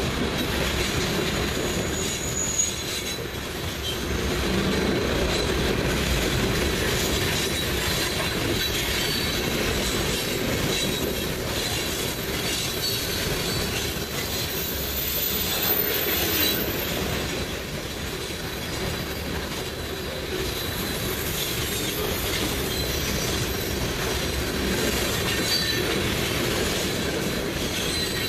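Freight train's covered hopper cars rolling past close by: a steady rumble of steel wheels on the rails. Brief high-pitched wheel squeals come and go.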